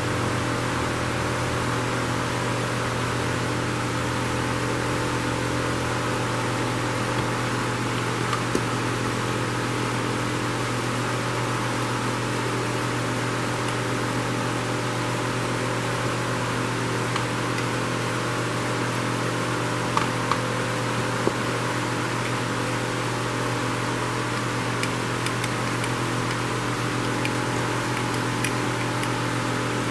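Steady hum and hiss of a shop fan running, with a few light clicks of small carburetor parts being handled.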